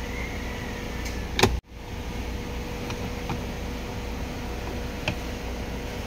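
Steady low hum of the engine idling, heard from inside the car, with light plastic clicks and knocks as an OBD-II scanner plug is handled and pushed into the diagnostic port under the dash. The loudest event is a sharp click about a second and a half in, after which the sound cuts out for a moment.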